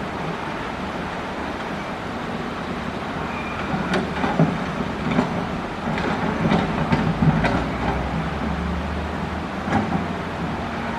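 Caterpillar excavator engine running under load while its steel bucket digs and scrapes coral rock, with repeated clanks and rattles of rock against metal, busiest in the middle.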